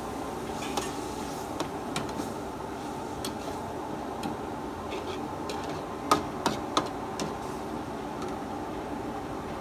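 Steel ladle clinking and knocking against an aluminium wok while stir-frying beef and pickled mustard greens, over a steady rushing frying noise; three louder knocks come in quick succession about six seconds in.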